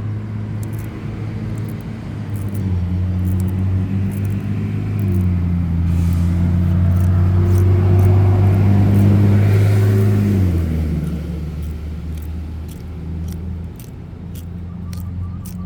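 A motor vehicle's engine running with a low, steady hum that shifts pitch in steps. It grows louder toward the middle and eases off after about ten seconds, with faint ticks over it.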